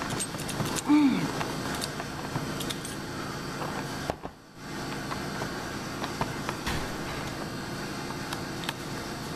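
Clear plastic blister packaging being handled, with scattered small clicks and crackles as the tray is moved and flexed, over a steady background hiss. A short falling tone about a second in is the loudest sound.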